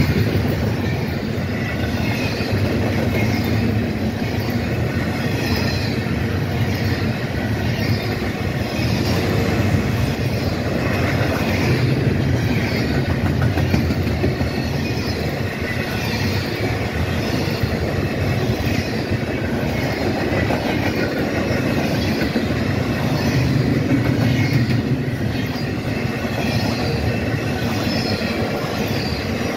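Double-stack intermodal freight cars rolling past close by: a steady, loud rumble of steel wheels on rail, with a regular clatter of wheels running over the rail joints.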